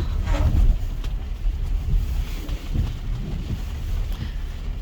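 Wind buffeting the microphone over a steady low rumble of vehicle engines as cars are loaded onto a ferry.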